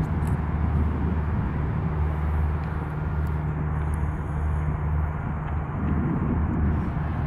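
Boeing KC-46 Pegasus tanker's twin turbofan jet engines: a steady low rumble with a faint droning hum running through it.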